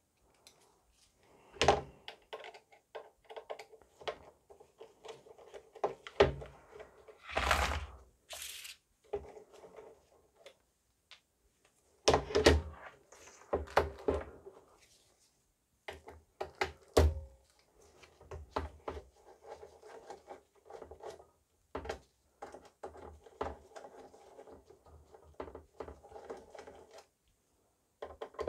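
Hand screwdriver turning out small screws on a power supply's casing and cover, with the parts handled on a bench: scattered clicks, taps and scraping, and a few louder knocks.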